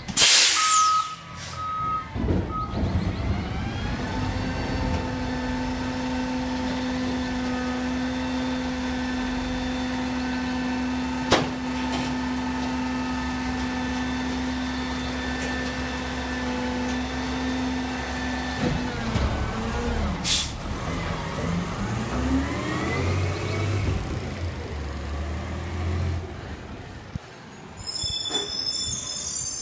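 Garbage truck: a loud air-brake hiss right at the start with a few reversing beeps, then the diesel engine revs up and holds high and steady for about fifteen seconds, as it does to drive the hydraulics, before dropping back and revving up again. A sharp knock sounds twice, near the middle and again a little later.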